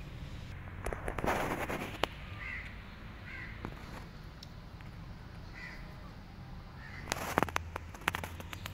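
Crackling rustle in two bursts, a little after a second in and again near the end, over brief faint calls that recur every second or two.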